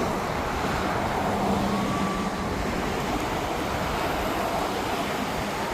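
Steady rushing outdoor noise of wind and road traffic, with a faint low hum from about one to three seconds in.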